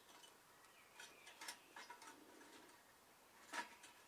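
Faint crackles and small snaps from dry grass tinder and kindling catching from a match in a small hobo stove, with one louder snap about three and a half seconds in.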